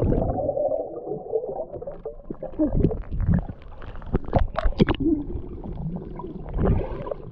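Muffled underwater sound from a GoPro camera submerged in a pool: low rumbling and gurgling of water moving around the camera housing, with irregular knocks and crackles, thickest about four to five seconds in as the camera nears the surface.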